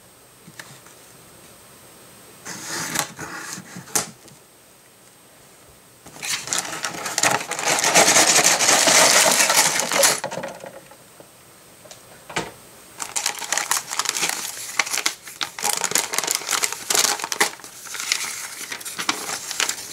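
LEGO set box opened and its contents taken out. Sealed plastic bags of LEGO bricks rattle and crinkle, and paper instruction booklets slide and rustle. The loudest part is a few seconds of rustling and clattering in the middle, followed by on-and-off crinkling of the bags as they are handled.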